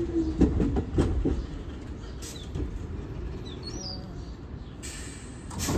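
R46 subway train rolling to a stop at a station platform. Its wheels knock over rail joints for the first second or so, then it runs on with a quieter low rumble. A short hiss of air comes near the end.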